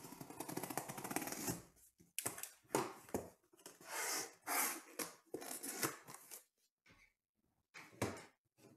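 Utility knife slicing through packing tape on a cardboard case, a dense scraping rasp, followed by a series of rustles and scrapes as the cardboard flaps are pulled open and folded back, with one last scrape near the end.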